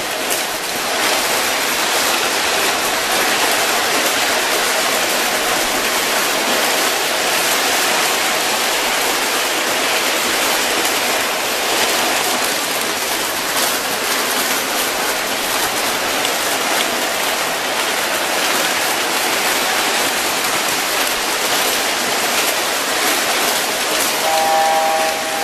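O scale toy electric trains running on tin-plate track close by: a steady clatter of metal wheels and motors.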